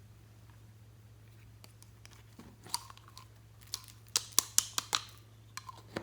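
Slime being worked by hand, giving sharp crackling pops: a few scattered clicks at first, then a quick run of five or six loud pops about four seconds in, and a few more near the end. A low steady hum lies under it.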